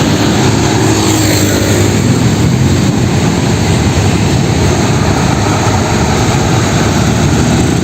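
Loud, steady engine noise of a running motor vehicle, an added sound effect rather than the toy itself.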